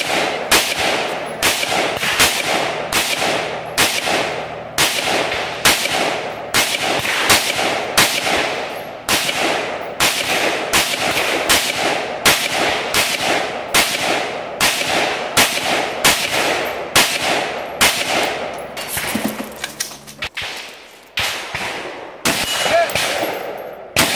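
Semi-automatic AR-style rifle fired in a long steady string, about one to two shots a second, each a sharp crack with an echo. After a short pause near the end, some shots are followed by the ring of steel target plates being hit.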